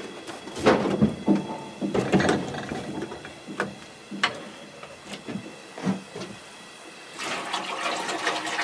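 Knocks and bumps as a jug of maple sap is handled, then about seven seconds in, sap pouring steadily from the jug into a steel evaporator pan.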